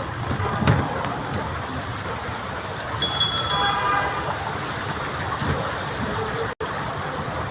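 Wet city-street traffic noise in the rain, with a vehicle horn honking once for under a second about three seconds in.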